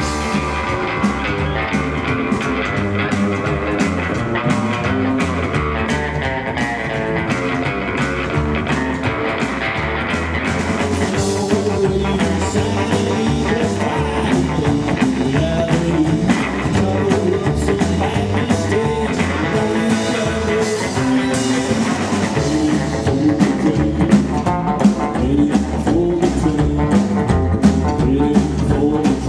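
Rockabilly trio playing live: electric guitar over an upright double bass and a drum kit, with a steady, driving beat.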